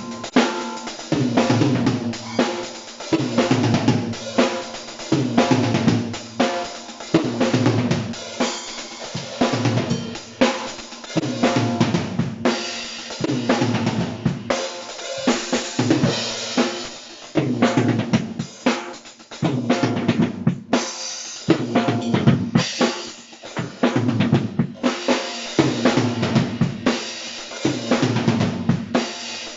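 A Tama Imperialstar drum kit being played: a continuous run of drum hits and cymbals.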